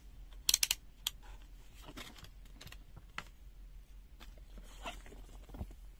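Faint handling noise from a multimeter and its test leads: a quick cluster of sharp plastic clicks about half a second in, then scattered lighter clicks and taps.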